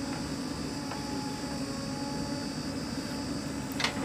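JCB 3DX backhoe loader's four-cylinder diesel engine running steadily under load as the backhoe arm digs and lifts a bucket of soil, with a thin steady whine over the engine drone. A short sharp knock near the end.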